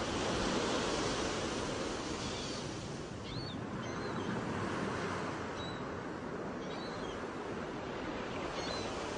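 Sea surf washing ashore in a steady rush that swells about half a second in and again around five seconds, with a few faint, short high chirps over it.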